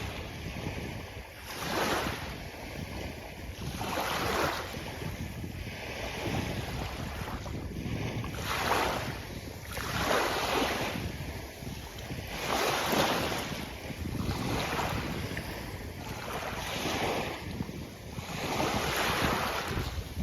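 Sea waves washing onto a beach, the surf rushing up in a swell every two to three seconds, over a steady low rumble of wind on the microphone.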